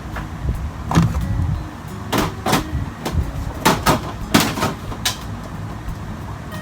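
A string of sharp knocks and clacks, about seven in four seconds, some in quick pairs, as containers and items are set down on a freshly assembled microwave rack, over a steady low hum.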